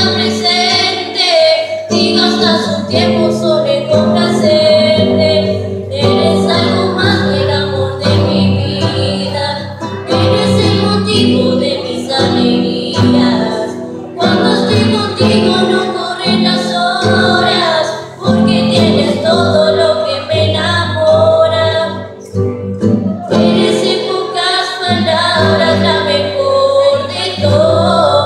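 A group of young women singing together to an acoustic guitar accompaniment, with short breaks between phrases.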